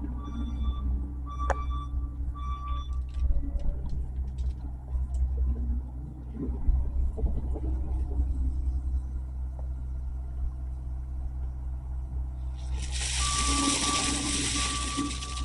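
Skid steer's diesel engine running with a steady low rumble, its backup alarm beeping for the first few seconds while it reverses, followed by clanks and scrapes. Near the end a loud hiss lasts about two and a half seconds.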